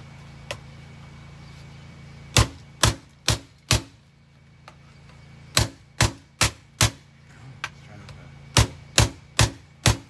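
Hard blows smashing a Kenmore canister vacuum cleaner, struck in three quick runs of four, about two blows a second, with short pauses between the runs.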